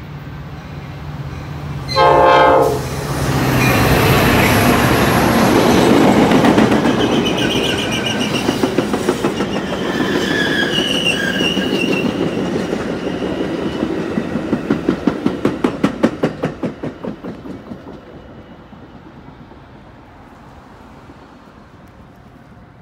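Metra commuter train passing close by. The diesel locomotive sounds a short horn blast about two seconds in, then comes the loud rush of the passing locomotive and cars, with some high squealing in the middle. A rapid, regular clickety-clack of wheels over rail joints follows, and the sound fades as the last cars go by.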